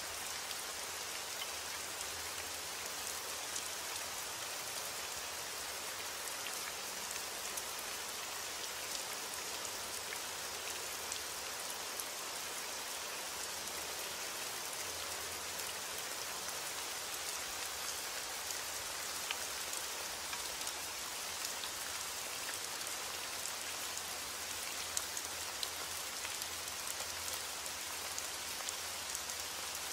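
Steady rain: a dense, even hiss with many small, sharp drop ticks scattered through it.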